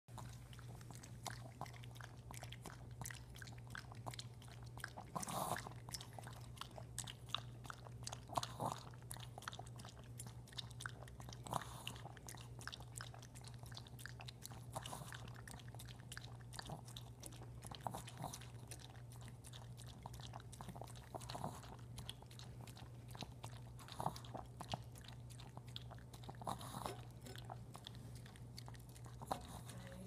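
Small dog lapping liquid from a ceramic plate: a quick, continuous run of wet licking clicks, with a few louder slurps a few seconds apart. A steady low hum runs underneath.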